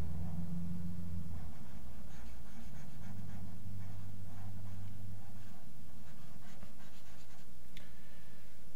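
Scratchy rubbing of a computer mouse dragged across the desk during paintbrush strokes, with a low rumble while it moves. A single sharp click comes near the end.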